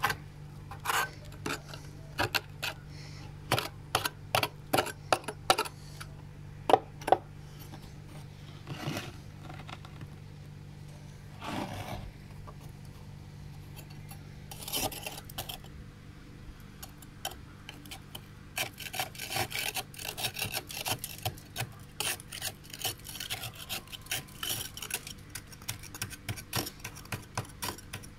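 Flat metal spoon scraping packed frost off the walls of a freezer: short, irregular scrapes of metal through ice, sparse through the middle and then quick and dense in the last third, over a steady low hum.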